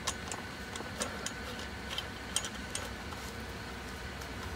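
Light, irregular metallic clicks and ticks of a small wrench working a screw as it is tightened carefully on a CNC 3018 Pro's aluminium base frame, over a faint steady low hum.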